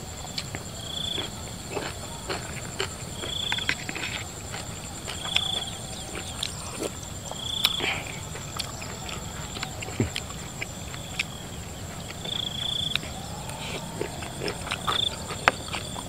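Close-miked wet chewing and mouth clicks of someone eating raw shrimp salad, with a clack of a spoon in a metal tray about eight seconds in. Behind it a steady high insect drone from crickets in the field, with a short high call repeating about every two seconds.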